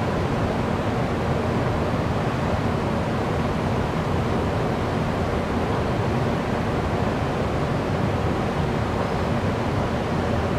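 Steady rushing background noise of an underground MRT station platform with a faint low hum, even throughout, with no train moving and no announcement.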